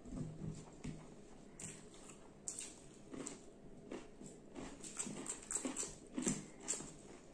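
Close-miked eating sounds: wet chewing and lip-smacking with sharp crunchy clicks from mouthfuls of rice, chicken and cucumber, coming thicker in the second half. There is a brief low hum through a full mouth near the start.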